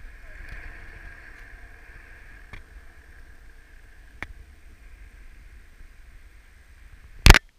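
Stunt scooter wheels rolling steadily over asphalt, a hum with a low rumble under it, with a few light clicks and one loud knock near the end.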